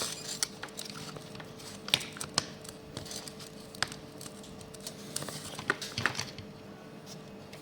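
Scattered small plastic clicks and taps as a Volkswagen driver's-door window switch housing is worked open with a small screwdriver, its parts coming apart.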